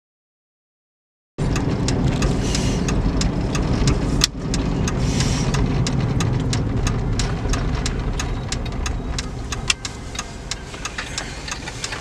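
Vehicle road noise from a moving car: a steady low rumble with frequent sharp clicks and knocks. It starts abruptly about a second and a half in.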